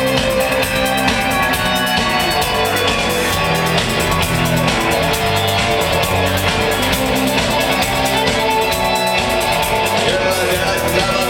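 Live rock band playing: electric guitar over bass notes and a steady drum-kit beat.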